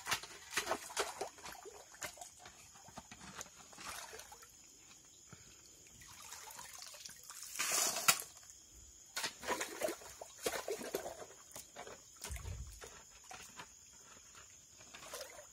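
A steel shovel digging gravel out of knee-deep muddy water: water sloshing and splashing, with sharp scrapes and knocks of the blade on stones and a louder splash about eight seconds in.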